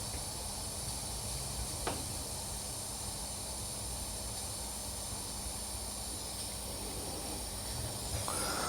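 Steady background hiss with a faint low hum, and one light click about two seconds in.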